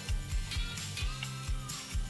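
Background music with a steady bass-drum beat.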